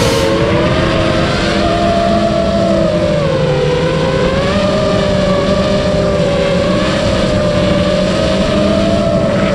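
Brushless motors and propellers of an iFlight Nazgul Evoque 5-inch FPV quadcopter whining, heard from a camera mounted on the drone itself. The whine stays loud while its pitch sinks and rises as the throttle changes.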